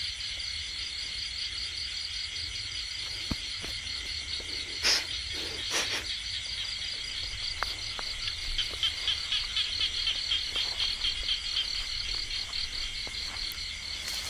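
A chorus of crickets and other night insects chirring steadily in several high bands, with a fast pulsing trill joining about eight seconds in and fading by about twelve. Two brief louder noises stand out about five and six seconds in.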